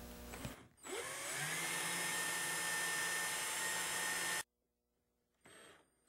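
Cordless drill driving screws up into the underside of a router table: the motor winds up with a rising whine, runs steadily for about three and a half seconds, then stops abruptly.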